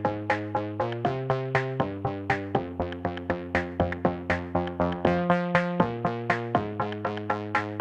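Background music: an electronic synthesizer tune with a steady beat of sharp, quickly decaying notes.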